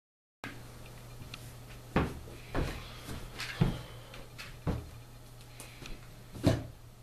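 Half a second of silence, then a faint low steady hum with about five dull knocks and bumps scattered through, as of things being handled and bumped.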